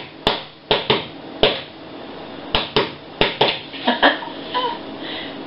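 Rock music playing from a TV, here mostly hard, uneven drum hits, each ringing briefly in a small room, about a dozen in all and thinning out after about four seconds.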